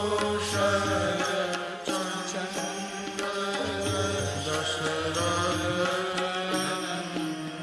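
Devotional Hindu bhajan music: melodic lines over a steady low drone, with light percussion strokes.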